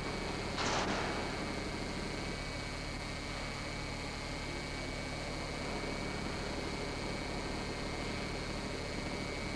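Steady electrical mains hum over a background hiss, with a brief burst of noise about a second in.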